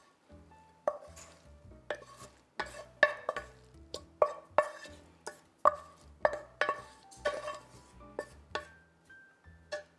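Wooden spatula knocking and scraping against a stainless steel pan as steamed broccoli and kale are scraped out of it, about two knocks a second, each with a short metallic ring. Background music with a low bass line plays underneath.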